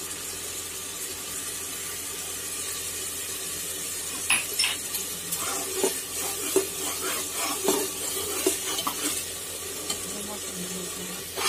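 Onion-tomato masala frying in hot oil in an aluminium pressure cooker, sizzling steadily as the spices roast. A metal spoon stirs it, clinking and scraping against the pot now and then from about four seconds in.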